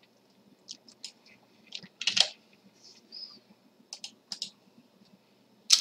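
Computer mouse and keyboard clicking: about a dozen short, irregular taps and clicks, with a louder cluster about two seconds in and another near the end.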